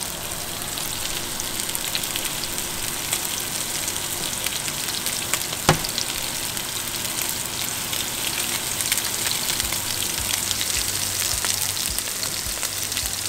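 Cornstarch-coated barracuda pieces sizzling steadily as they pan-fry in oil in a skillet, with one sharp tap about six seconds in.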